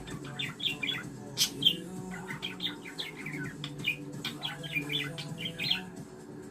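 Budgerigar warbling: a fast, chattering run of short chirps and clicks, with the loudest chirps about a second and a half in.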